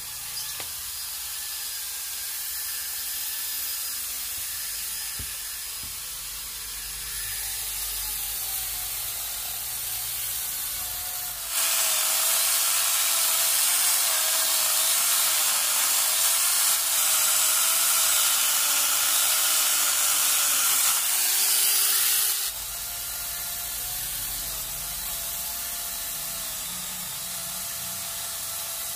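Electric angle grinder fitted with a Besttools chainsaw-converter bar and chain, cutting through a log. A loud hissing spray of cutting noise starts about a third of the way in and stops sharply about ten seconds later, with a wavering motor whine under it. Quieter running is heard before and after the cut.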